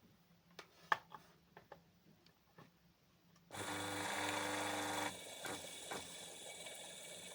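A few faint clicks, then, about three and a half seconds in, a rewound 300 W electric motor switches on with a sudden steady hum and whine. About a second and a half later it drops to a quieter steady run, with a couple of knocks.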